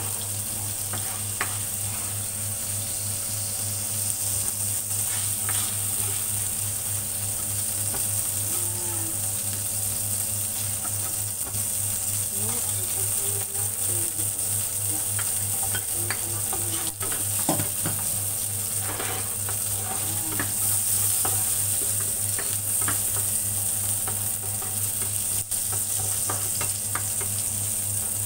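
Oil sizzling steadily in a nonstick frying pan, with scattered clicks and scrapes of a spatula against the pan as shrimp are lifted out, and garlic, shallots and ginger going into the hot oil near the end. A steady low hum runs underneath.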